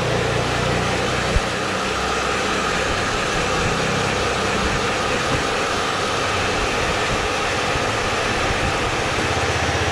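Hand-held hair dryer blowing steadily at close range, drying a freshly washed and polished gold ring. One short knock about a second and a half in.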